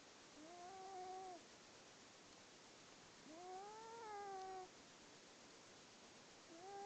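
Sleeping cat snoring with a whistling, whine-like tone on its breaths: three drawn-out whines about three seconds apart, each rising a little and then easing down.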